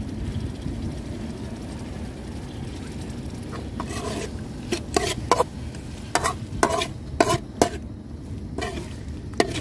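Metal spoon stirring chicken livers and gizzards in thick spicy sauce in an aluminium wok, with sharp clinks and scrapes against the pan from about three and a half seconds in. A steady low rumble runs underneath.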